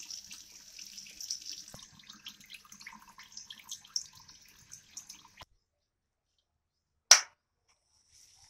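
Water running from a bathroom sink faucet into the basin, thinning out about two seconds in to scattered drips and small knocks that cut off suddenly. A few seconds later comes one sharp click, the loudest sound.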